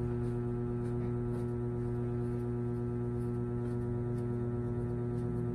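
Background ambient music: a steady, sustained droning chord.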